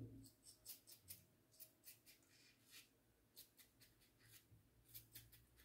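Edwin Jagger Kelvin double-edge safety razor scraping over lathered skin in many quick, short strokes, faint and scratchy, on an against-the-grain pass.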